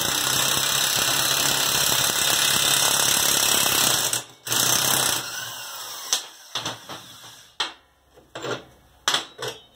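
Impact wrench hammering a nut down a bolt for about four seconds, stopping briefly, then a short second burst: it is drawing a homemade dimple die through a hole in a steel strap to press the dimple. A few separate metal clanks follow as the tool parts are handled.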